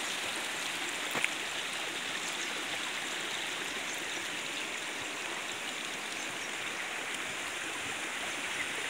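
Steady rushing of a stream, with a single short click about a second in.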